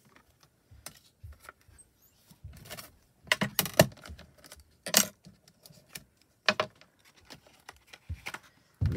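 Scattered clicks and clatter of hands handling a Mini Misti stamp positioning tool, its plastic base, magnets and plates knocking, loudest in a cluster of knocks about three and a half seconds in and a sharp one at five seconds.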